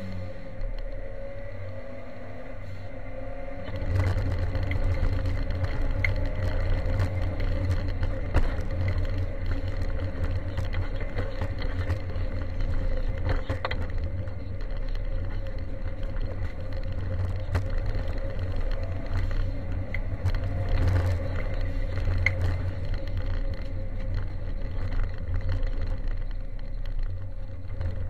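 Ford Sierra Cosworth 4x4 rally car at speed, heard from inside the cabin: its turbocharged four-cylinder engine runs hard over a heavy road rumble. From about four seconds in, when the car leaves asphalt for gravel, it gets louder, with a constant rattle of stones striking the underbody.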